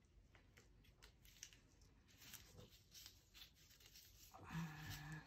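Faint, scattered scratching and small clicks of a little bristle brush scrubbing dried paint out of the air holes of a metal HVLP spray-gun air cap. A short hummed voice sound near the end.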